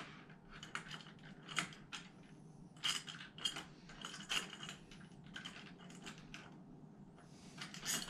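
Scattered light metallic clicks and taps, unevenly spaced, of door-knob hardware being worked by hand: the knob and its two mounting screws being fished around for the threaded posts by feel.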